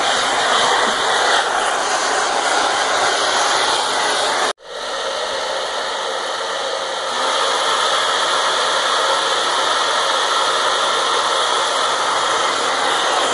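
Handheld hair dryer blowing steadily, its airflow making a dense, even rush. The sound drops out for an instant about four and a half seconds in, then runs on, a little louder from about seven seconds.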